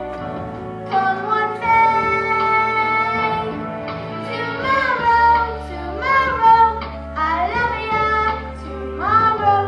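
A young girl singing a solo over instrumental accompaniment, with long held notes that slide between pitches.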